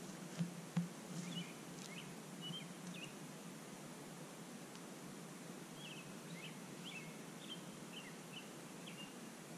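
Night ambience: a steady low hum and hiss, with short high chirps from a small animal coming in two spells. Two sharp clicks about half a second apart near the start are the loudest sounds.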